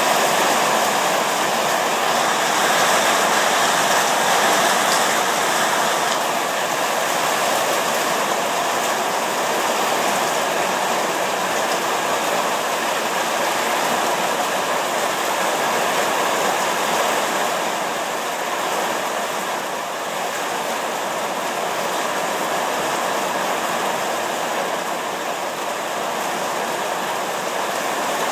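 Heavy rain from a thunderstorm falling steadily, an even hiss that swells and eases slightly over time.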